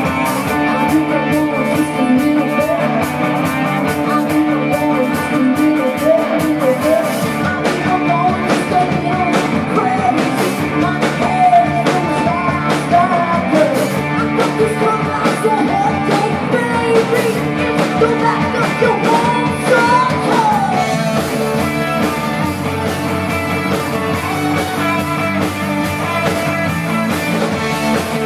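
Live rock band playing: electric guitar and drums with a lead melody line that bends and slides over them. About three-quarters of the way through, the drumming thins out and the lead line drops away.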